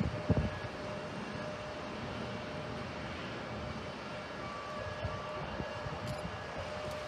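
Jet airliner engines heard at a distance: a steady rushing roar with faint steady tones in it.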